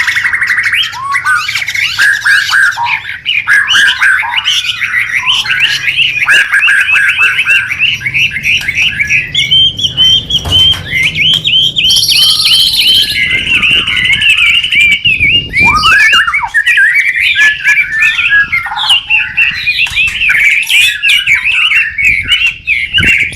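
White-rumped shama (murai batu) singing a loud, continuous song of rapid, varied chirps, whistles and trills with hardly a break, the intense 'gacor' singing used as a master recording to train pet songbirds.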